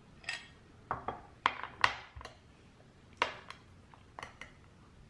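A series of light clinks and taps from hard objects being set down or knocked together, each ringing briefly, with about ten in all and a pause in the middle.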